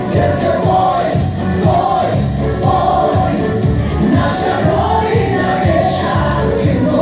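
A song playing: singing over music with a steady beat.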